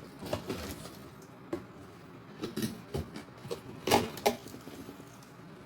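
Light knocks, clicks and clatter of meat grinder parts being handled, with the sharpest knock about four seconds in.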